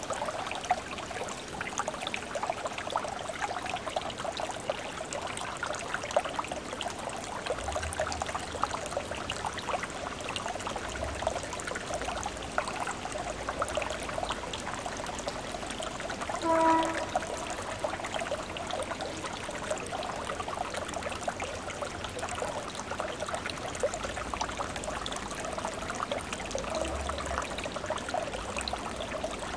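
Gas bubbles rising and breaking at a pond's surface, a steady babble of small gurgles and pops. About halfway through, one short pitched note stands out as the loudest sound.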